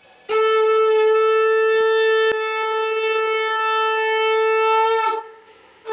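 Conch shell (shankha) blown in one long, steady note of about five seconds that sags slightly in pitch as it ends, with a second blast starting right at the end. It is the ritual conch-blowing that accompanies marking the brother's forehead at Bhai Phota.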